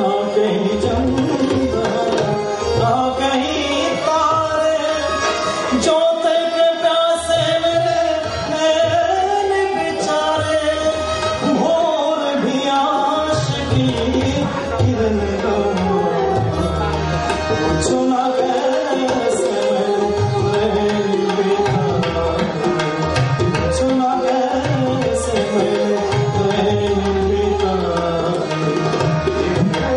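Ghazal music: tabla keeping a steady rhythm with deep bass strokes, under harmonium and a man's singing voice.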